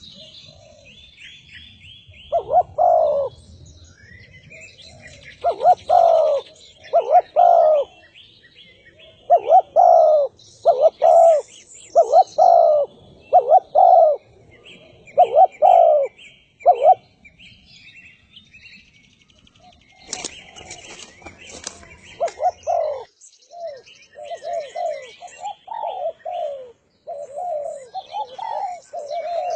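Spotted dove (derkuku) cooing: a run of mellow coo phrases, the notes coming mostly in pairs, then after a pause a quicker string of short coos near the end. Small birds chirp faintly at a higher pitch behind it.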